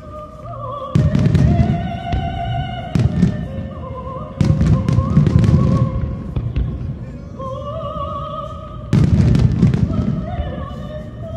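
Aerial fireworks bursting in several loud clusters, each a deep boom with sharp cracks, about 1, 3, 4.5 and 9 seconds in. Under them plays the show's operatic soundtrack: a singer holding long notes with vibrato.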